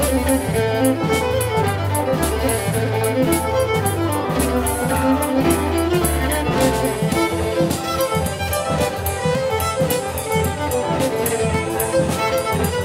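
Live contra dance band music: a fiddle playing the dance tune over sustained bass notes and a steady beat.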